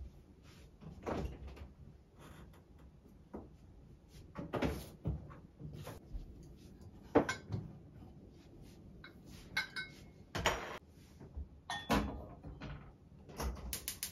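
Kitchen handling sounds: scattered knocks and clinks as dishes and a kettle are picked up and set down, with louder knocks about 7 and 12 seconds in. Near the end a gas hob's igniter starts clicking rapidly.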